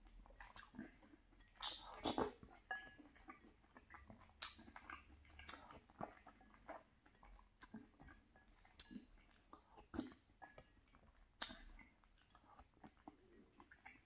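Faint close-miked chewing of gumbo, with irregular small clicks and scrapes of a plastic spoon stirring in a glass bowl.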